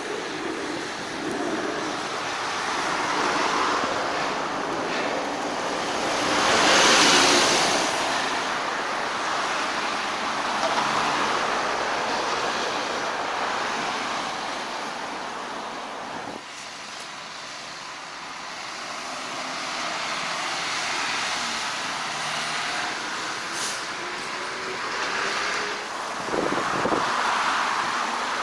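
Outdoor rushing noise of road traffic and wind, swelling and fading, loudest about seven seconds in, with a sudden drop near the middle.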